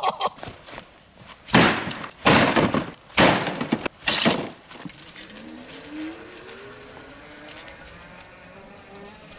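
A fat-tire electric bike and a collapsed metal table crashing and clattering, four loud crashes in about three seconds. Then the e-bike's motor gives a faint whine that rises in pitch as it pulls away.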